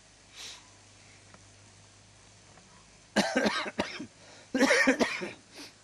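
A person coughing hard in two loud bouts, about three seconds in and again a second later.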